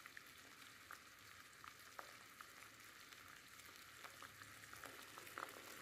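Faint, steady bubbling sizzle with small crackling pops: orange peel boiling hard in a sugar syrup that has already reduced and thickened.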